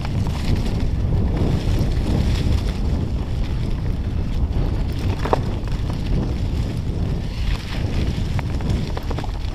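Wind buffeting the handlebar-mounted microphone and the rumble of mountain bike tyres rolling over a dirt trail strewn with dry leaves. Scattered sharp clicks and rattles from the bike, the clearest about five seconds in.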